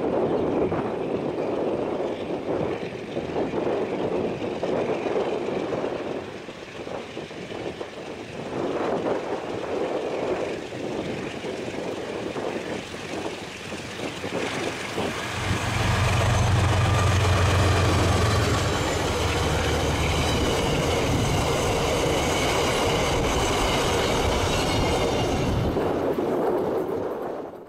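KiwiRail DFB-class diesel-electric locomotive hauling a passenger train approaches and passes. Its engine drone becomes loud about halfway through, then steel wheels rumble and squeal on the rails as the carriages go by. The sound cuts off suddenly at the end.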